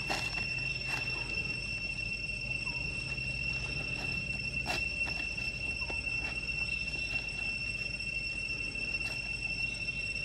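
Steady insect drone, one unbroken high-pitched tone, with a few short crackles of dry leaves, the loudest about a second in and near the middle.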